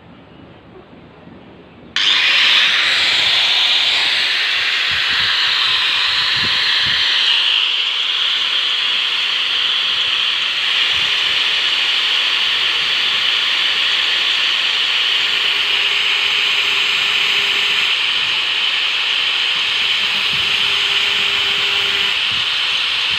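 A saw being sharpened: a steady, unbroken grinding hiss that starts suddenly about two seconds in.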